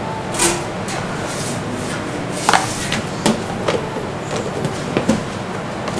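A metal utensil knocking and scraping against a plastic tub while shredded chicken is spooned onto pizza dough: about six light, irregular knocks over a steady background noise.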